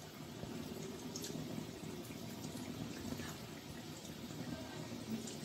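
Bakarwadi rolls deep-frying in hot oil in a steel kadhai on a low flame: a steady sizzle and bubbling, with a few small crackles as more pieces go into the oil.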